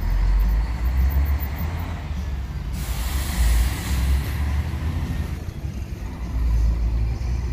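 Coach bus's diesel engine rumbling as the bus pulls away, with a burst of air hiss about three seconds in.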